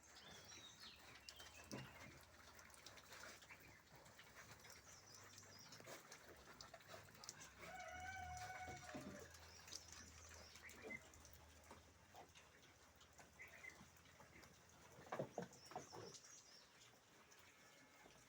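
Faint farmyard animal sounds: scattered high bird chirps, one held call lasting about a second around eight seconds in, and a few sharp knocks about fifteen seconds in.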